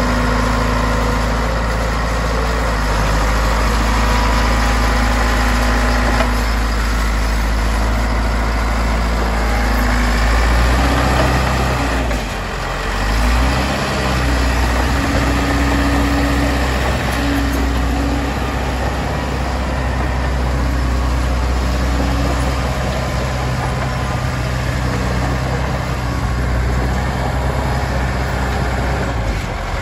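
Caterpillar D5H crawler dozer's diesel engine running steadily as the dozer drives on its tracks. The engine note dips briefly about twelve seconds in, then picks back up.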